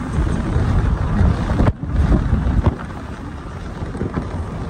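Road and wind noise of a moving car heard from inside: a steady low rumble of tyres and wind, with a brief dropout a little under two seconds in and a slightly quieter stretch after.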